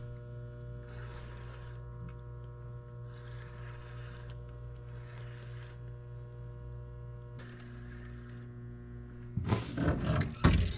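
A steady electrical hum. A soft hiss swells and fades about every two seconds over it. Near the end comes a burst of loud knocks and rustling.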